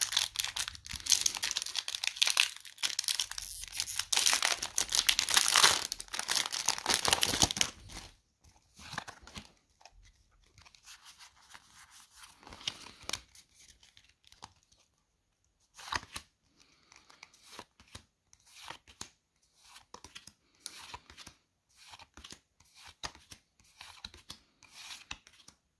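Foil Pokémon booster pack wrapper being torn open and crinkled for about eight seconds. After that come sparse soft clicks and rustles of trading cards being handled one at a time.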